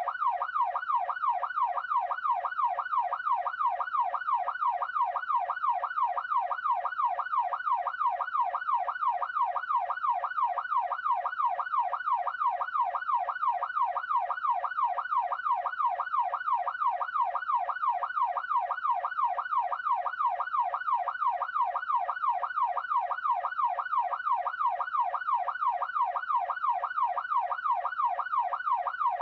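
Police siren in yelp mode: a fast rising-and-falling wail, about two to three sweeps a second, repeating evenly without a break.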